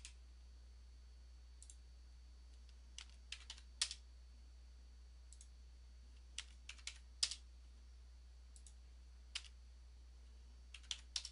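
Computer keyboard keys tapped in quick groups of three or four, with single clicks between, faint over a steady low hum: the keystrokes of typing a 16-inch spacing (Ctrl, 1, 6, Enter) and mouse clicks placing each copied truss.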